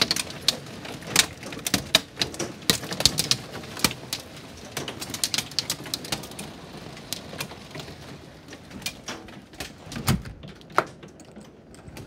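Penny-sized hailstones striking a wooden deck in a rapid, irregular clatter of sharp ticks that thins out near the end. A dull thump comes about ten seconds in.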